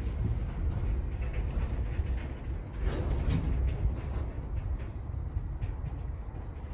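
Intermodal freight train rolling slowly past: a steady low rumble of steel wheels on rail with scattered clicks and clanks, slowly easing off.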